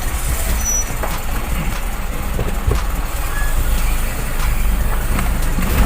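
Isuzu 4HL1 four-cylinder diesel engine running steadily as the truck is driven and slows. It keeps running as it drops toward idle, where a stuck injector nozzle needle used to make it stall.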